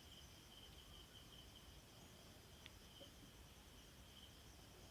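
Near silence: room tone with a faint, steady high-pitched pulsing trill and one faint tick a little past halfway.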